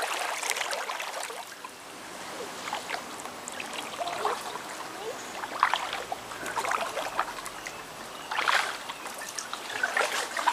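Kayak paddle dipping into the river, splashing and dripping with each stroke every second or two, over a faint steady trickle of flowing water.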